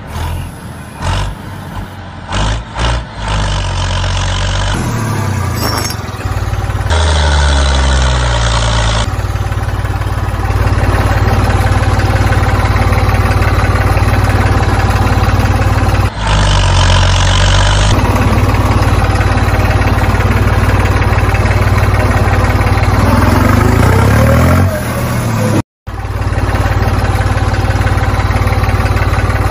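Tractor engine running and revving in a string of short clips: a low steady run, with the pitch rising and falling in a few places and a momentary break near the end.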